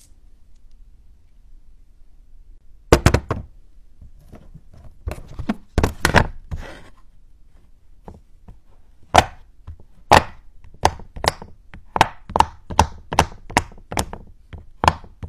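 Bubbles of a round silicone pop-it fidget toy being pressed one after another, giving dull popping clicks about two a second from about nine seconds in. A few louder knocks come earlier, around three to six seconds in, while glass marbles are handled over the pop-it.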